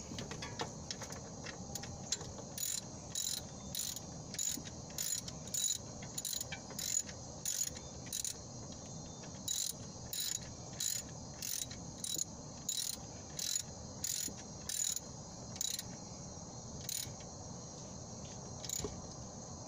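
Ratchet wrench clicking in steady strokes, about two or three a second, as a 14 mm alternator mounting bolt is run down tight; the strokes pause briefly about halfway and thin out to a few last clicks near the end.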